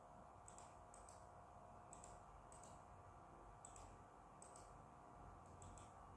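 Faint clicks of a computer mouse, about eight of them at irregular spacing, some in quick pairs, over a faint steady electrical hum.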